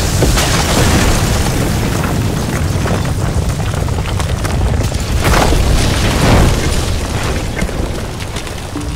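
Sound-design boom in an animation soundtrack: a dense, loud rumble of noise, heaviest in the bass, that holds steady with a couple of swells about two-thirds through and eases slightly near the end.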